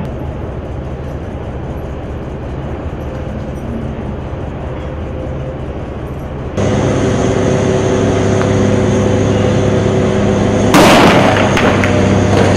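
Heavy armoured-vehicle engine running with a steady hum, which jumps louder a little past halfway. Near the end a single loud blast goes off, followed by a few shorter sharp cracks of gunfire.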